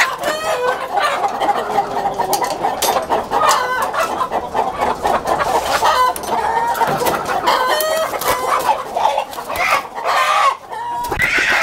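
A shop full of caged country chickens clucking and squawking over one another, with roosters crowing among them.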